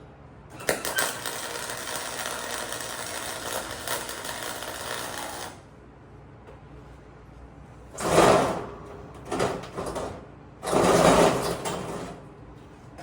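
An arc welder running a bead for about five seconds: a steady noise that stops suddenly. About two seconds later come three shorter, louder bursts of noise.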